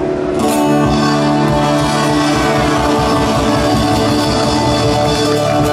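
A live rock band playing amplified guitars over a steady drum beat.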